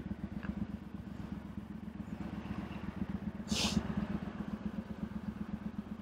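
Motorcycle engine idling steadily while stopped, with a short hiss about three and a half seconds in.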